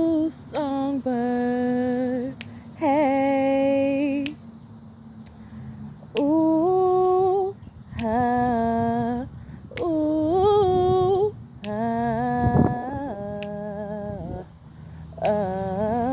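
A woman humming a slow wordless melody in long held notes, each a second or so, with short gaps between. A light sharp click about every two seconds keeps time.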